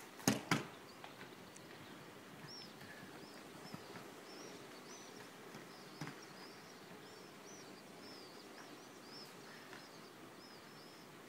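Two sharp knocks in quick succession at the start, then faint bird chirping, short high notes repeated every half second or so over a quiet outdoor background.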